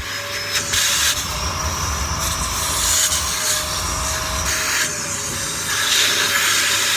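Vacuum cleaner running with a steady motor whine and rushing airflow, its nozzle rubbing and bumping irregularly over ASICS shoes.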